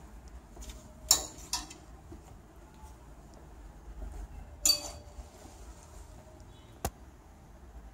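Clothes hangers clinking against a metal clothes rail as the dresses are moved: four sharp, irregular clinks, the loudest about a second in and just under five seconds in.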